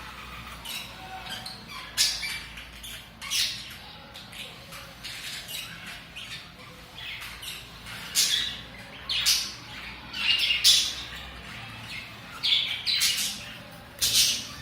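Pet budgerigars calling: a string of short, sharp, high calls, single or in quick runs every second or so, with softer chirping chatter between them. The calls come thickest in the second half.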